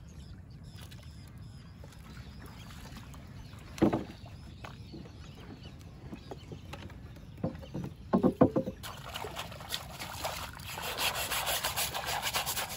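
Knocks on a small wooden boat, one about four seconds in and a short cluster around eight seconds, then from about nine seconds a continuous splashing and rustling as a fish trap crowded with jumping fish is handled.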